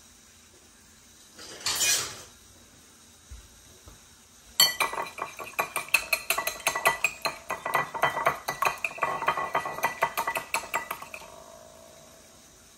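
Whisk beating raw eggs in a ceramic bowl: a quick run of clicks and scrapes against the bowl, several a second, starting about four and a half seconds in and lasting about six seconds before it fades. A short noise comes earlier, near two seconds in.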